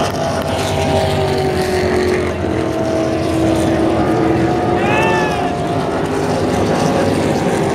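NASCAR Cup stock cars' V8 engines running past the frontstretch in a steady, continuous drone.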